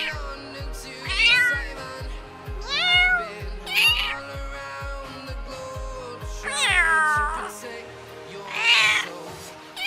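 Domestic cat meowing repeatedly, about six separate meows, one of them long, each rising then falling in pitch. Background music with a steady low beat plays under them and drops out about three quarters of the way through.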